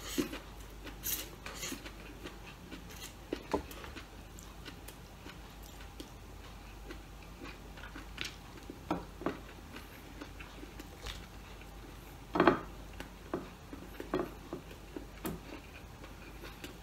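Close-up eating sounds: glass noodles being slurped up in the first couple of seconds, then chewing and lip smacks heard as scattered short clicks, with one louder knock about twelve seconds in.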